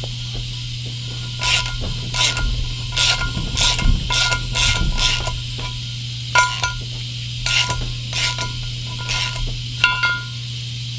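Ratchet wrench clicking in about a dozen short bursts, starting about a second and a half in, as it turns a Time-Sert reamer by hand to enlarge a stripped spark plug hole in an aluminum Ford Triton cylinder head. A steady low hum runs underneath.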